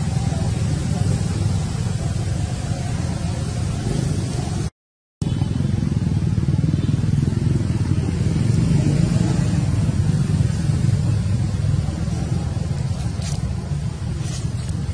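Steady low rumbling noise with a hiss above it, cutting out to silence for about half a second near 5 s. A couple of faint high chirps come near the end.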